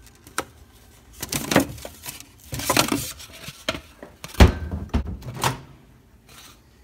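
Foam bowls scraping and rustling as one is pulled off a stack inside a wooden kitchen cabinet, among short knocks of the cabinet door, with one loud thump about four and a half seconds in.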